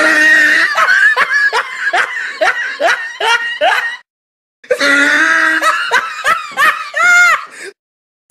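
Laughing sound effect: a voice laughing in quick repeated bursts, in two stretches that each cut off abruptly, the second ending in a few rising-and-falling squeals.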